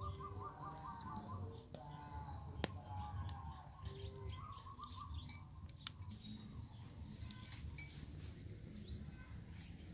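Small wood fire crackling with scattered ticks and two sharper pops, under birds chirping, with a quick trill of repeated notes at the start.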